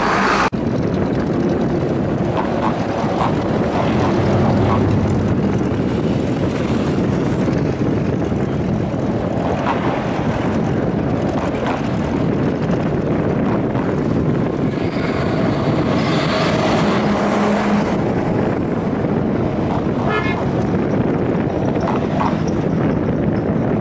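Steady outdoor noise of passing traffic and wind on the microphone, with a brief steady tone about sixteen seconds in.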